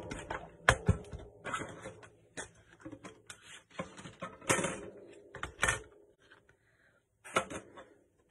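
Paper and cardstock being handled on a cutting mat: a string of rustles, light taps and clicks, the sharpest tap right at the start, with a short quiet spell about six seconds in.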